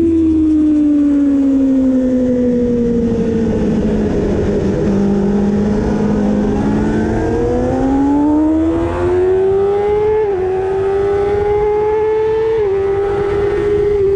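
Kawasaki ZX-6R 636 inline-four engine heard onboard: the revs sink slowly as the bike slows, hold low briefly, then climb hard under throttle with two quick dips as it shifts up.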